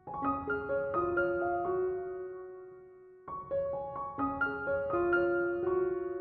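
Background music: a soft piano playing flowing broken-chord notes, one phrase fading out about three seconds in and the next starting right after.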